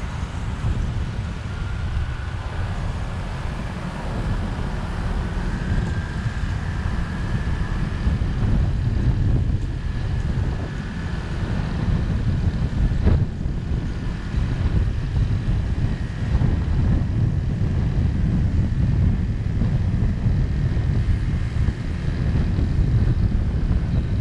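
Wind rumbling on the microphone of a moving vehicle, over road and passing traffic noise. A faint high whine runs through the first two-thirds, and there is a single sharp click about halfway through.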